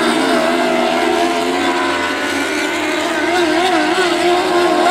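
Several winged Lightning sprint cars racing on a dirt oval. Their engines run at high revs, the pitch wavering up and down several times a second from about three seconds in.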